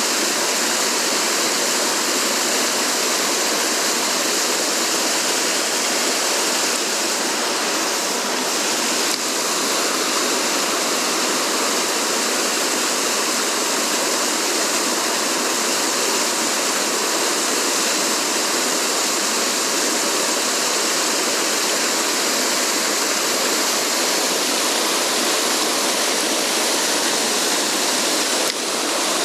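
Mountain stream water rushing over rocks: a steady, loud, unbroken wash of water noise.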